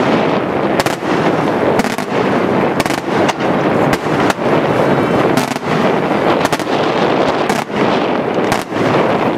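Daytime aerial fireworks bursting overhead: a dense, continuous rattle of rapid small reports, with louder sharp bangs about once a second.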